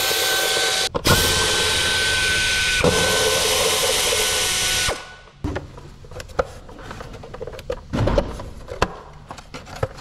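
Power drill-driver spinning out the bolts of an engine's plastic timing-belt cover: a steady whine in two long runs with a short stop about a second in, cutting off after about five seconds. Clicks, knocks and rattles follow as the plastic cover is worked loose by hand.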